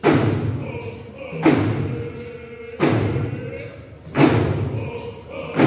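A drum beaten in a slow, steady beat, about one stroke every second and a half, each stroke ringing on in a large hall. Voices sing along between the beats.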